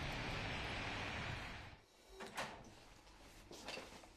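Steady outdoor noise of wind and distant traffic with a deep rumble, cutting off suddenly a little under two seconds in. A quieter room follows, with one sharp click and a few fainter knocks.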